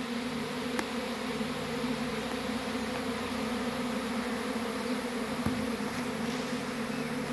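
A swarm of honey bees flying in a dense cloud and settling into a cluster on a tree branch, making a steady humming drone of many wingbeats.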